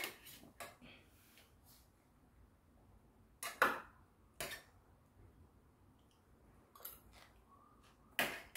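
Metal chopsticks and a spoon clinking against a stainless steel compartment tray: a handful of sharp, separate clinks at irregular intervals, the loudest about three and a half seconds in and near the end.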